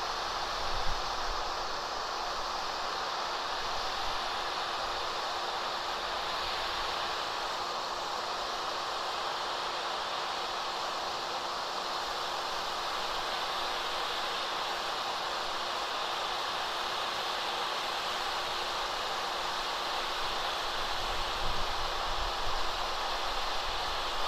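Handheld hot-air heat gun with a plastic-welding nozzle running steadily, melting HDPE welding rod into a seam. Its fan gives an even hiss over a constant motor hum, with a few faint low bumps near the end.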